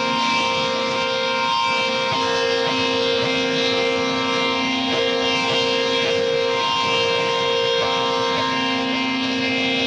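Harsh noise / ambient electronic music: a dense, steady droning wall of held tones over hiss, its low tone stepping slightly in pitch every few seconds.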